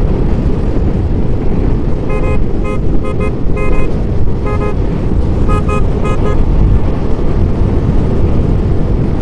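A vehicle horn toots about eight times in short beeps, some in quick pairs, from about two seconds in to about six and a half seconds in. Under it runs the steady rumble of wind and a motorcycle at road speed.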